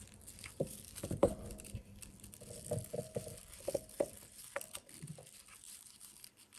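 Paper yarn and the crocheted paper-yarn bag base rustling and crinkling as they are handled: faint, scattered crackles and soft ticks that die away about five seconds in.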